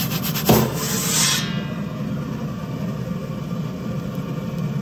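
Gas burner of a Blackstone pizza oven running steadily on high. About half a second in, the metal pizza peel scrapes and knocks against the oven stone as it is pulled out, with a short rasping hiss after it.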